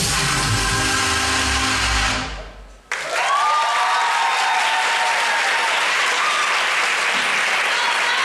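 Performance music fades out about two seconds in. Just under a second later, audience applause and cheering break out suddenly and keep going.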